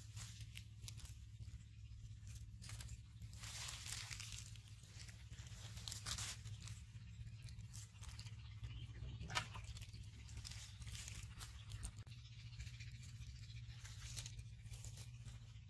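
Faint rustling and crackling of dry plant stalks and leaves being shifted, with one sharp click about nine seconds in, over a low steady hum.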